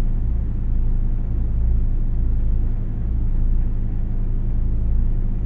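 Steady low hum with an even hiss above it, running unchanged throughout.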